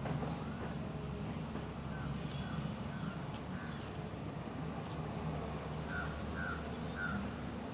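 Crows cawing in short repeated calls, clustered near the middle and again near the end, over a steady low background noise.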